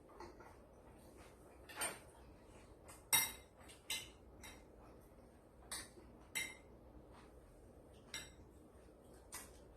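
Utensils clinking against a dish: about seven separate sharp clinks, roughly a second apart. The loudest comes about three seconds in.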